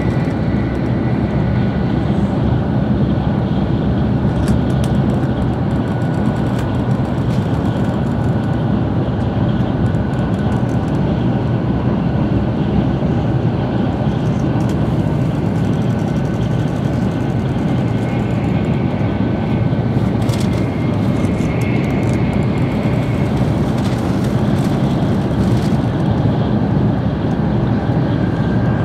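Tokaido Shinkansen bullet train running at speed, heard from inside the passenger cabin: a steady rumble of wheels and air with a faint high whine held throughout.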